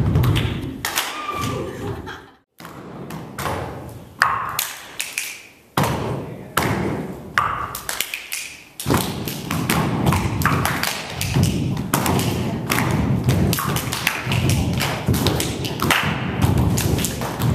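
Group body percussion: bare feet stamping on a wooden dance floor mixed with hand claps and slaps on the body, in a rhythmic pattern of thuds and taps. The sound breaks off briefly near the start, then resumes and grows denser and more even toward the end.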